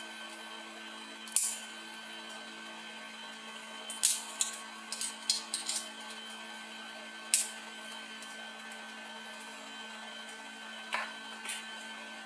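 Plastic clicks and snaps from the DJI Osmo Action's mount adapter and quick-release base being twisted and fitted together: a sharp click about a second and a half in, a quick run of clicks between four and six seconds, another at about seven and a half seconds, and two softer ones near the end, over a faint steady hum.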